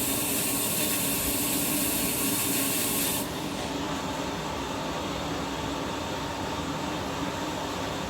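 GE GFW550 front-loading washing machine running its rinse-and-spin cycle, a steady hum under a rushing noise. About three seconds in, the high hiss cuts off suddenly and the sound drops slightly.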